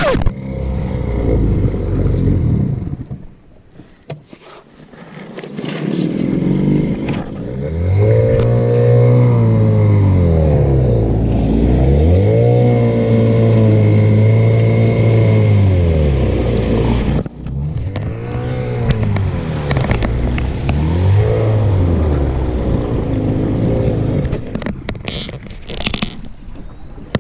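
Small outboard motor pushing a johnboat along, its pitch rising and falling several times as the throttle is opened and eased.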